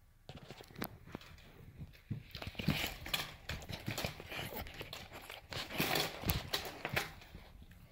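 Saint Bernard puppy chewing on a bison bully stick: an irregular run of wet clicks and gnawing crackles, louder and closer from about two and a half seconds in.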